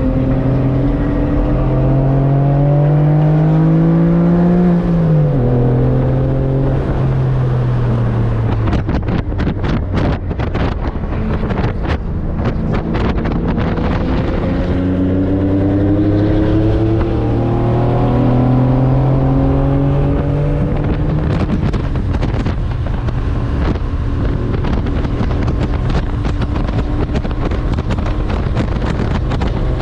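Porsche 911 (996) flat-six engine heard from inside the cabin, revving hard with an upshift about five seconds in and pulling on before backing off around nine seconds into a stretch of wind buffeting. It climbs through the revs again from about fifteen to twenty-one seconds, then runs lower with wind buffeting on the microphone.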